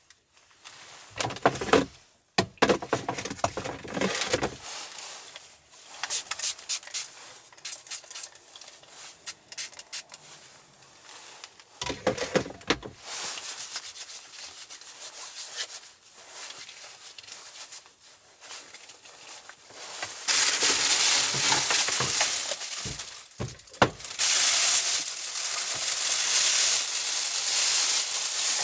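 Hands rubbing together and small handling rustles, then, from about two-thirds of the way through, loud crinkling of a clear plastic bag as an electric takoyaki plate is pulled out of its wrapping.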